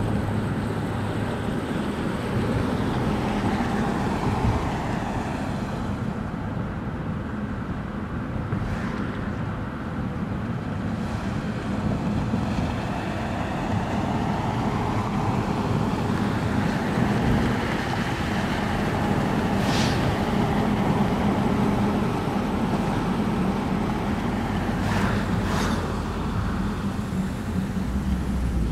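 Car driving on the road: steady tyre, engine and wind noise, with a few brief clicks.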